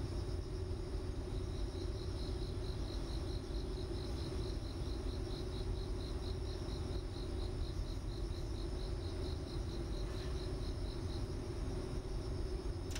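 Insect chirping in a steady, even rhythm of a few high chirps a second, stopping about eleven seconds in, over a low steady hum and rumble.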